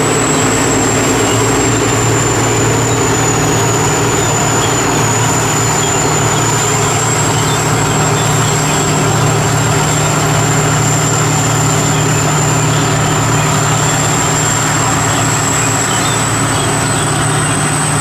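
Sakpattana KM-D 4.1 rice combine harvester, with a turbocharged 225 hp engine, running steadily while harvesting: a deep, even engine drone with a steady high whine above it.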